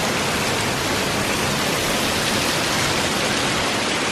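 Waterfall running steadily: a constant, even rush of falling water.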